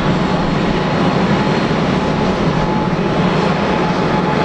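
Boeing 787-8's Rolls-Royce Trent 1000 turbofans at idle as the airliner taxis slowly. The sound is a steady rushing hum with a faint high whine.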